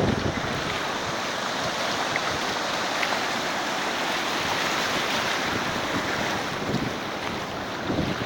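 Ocean surf washing onto a sandy beach, a steady hiss of breaking waves, with wind buffeting the microphone at the start and again near the end.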